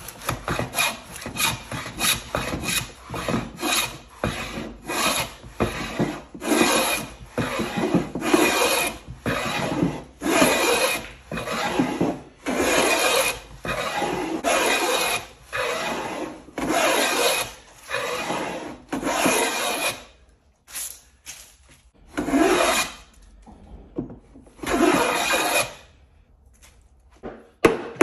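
Cast-iron rabbet plane cutting a rabbet along the edge of a pine board, one hissing stroke after another, about one a second. After about twenty seconds the strokes thin out to a few longer, spaced passes.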